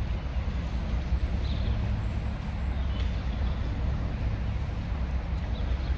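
BR Class 33 diesel locomotive 33002's Sulzer eight-cylinder engine idling steadily, a low, even sound.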